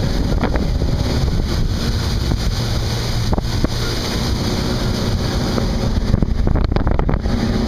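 Motorboat under way: a steady engine hum with water rushing past the hull and wind buffeting the microphone, with a few brief knocks late on.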